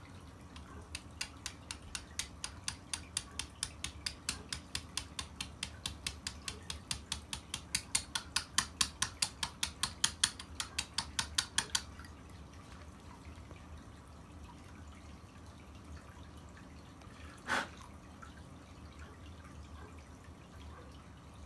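Rapid light hammer taps on a steel punch, about four a second, driving a worn bearing out of an RC truck part; the taps get louder and then stop. A few seconds later there is a single sharper metallic clink.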